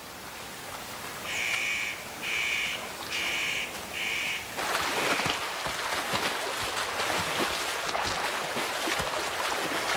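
A bird calls four times in a row, about one call a second, over the sound of running river water. About halfway through, splashing water takes over: European bison wading and kicking through the shallows.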